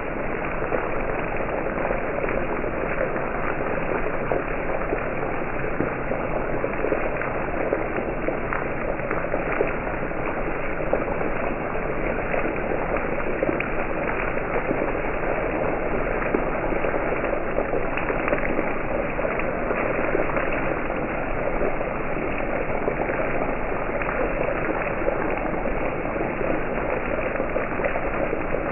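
Beef tenderloin steaks sizzling steadily in hot fat in a cast-iron skillet, a constant crackle of fine spatters.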